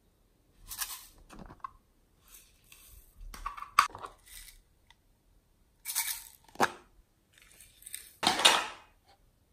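Hands handling small plastic cases, making scattered rustles and scrapes with a few sharp plastic clicks. The longest and loudest rustle comes near the end.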